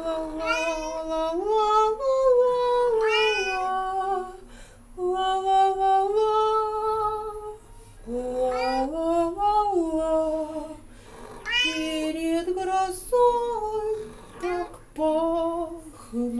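A domestic cat meowing and yowling along with a woman singing. Drawn-out pitched notes slide up and down in phrases of a second or two, broken by short pauses.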